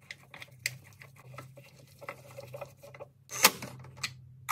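Small clicks, taps and rattles of metal and plastic hardware being handled and fitted, as a Porsche 968 door catch is assembled and snugged up on the door pillar. There is a sharp louder click about three and a half seconds in, and a smaller one just after.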